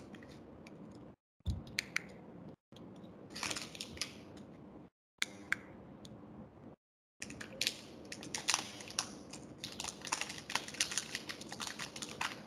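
Crinkling and crackling of a metallised anti-static plastic bag being unfolded by hand: sparse at first, then dense and continuous over the last five seconds. The sound cuts out completely for brief moments a few times in the first half.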